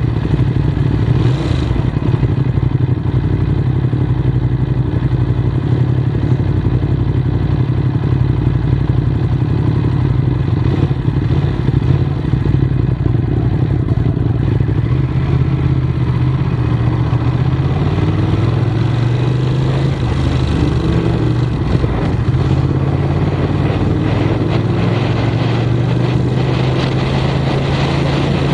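Ducati Monster's V-twin engine idling at a standstill, then revving up and pulling away about two-thirds of the way in, settling into a steady run.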